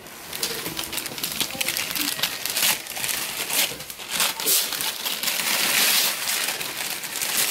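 Wrapping paper crinkling and rustling in a dense, crackly run as a Christmas present is handled and unwrapped.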